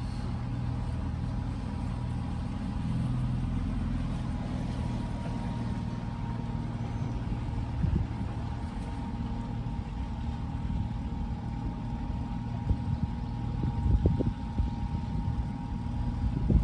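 Small boat outboard motor running steadily at cruising speed: a low drone with a faint steady whine above it. A few low thumps come about halfway through and near the end.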